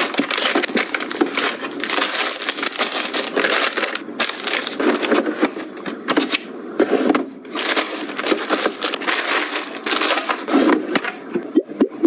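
Plastic packaging crinkling and rustling as it is handled, in dense crackling bursts with short pauses between handfuls.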